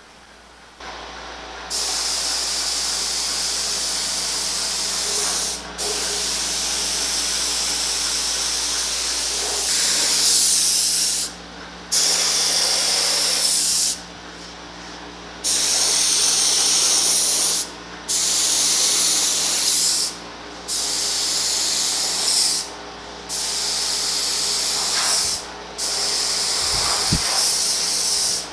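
Gravity-feed paint spray gun spraying polyester primer: a loud air-and-paint hiss in passes of a few seconds each, cutting off briefly between passes, about eight times.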